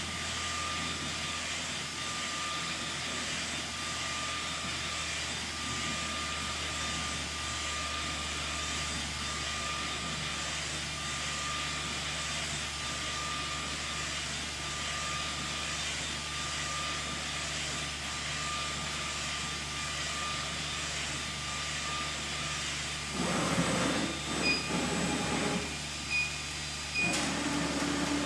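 UV flatbed inkjet printer running with a steady whir and hiss and a faint repeating tone. Near the end the sound changes and grows louder, with a few short high beeps.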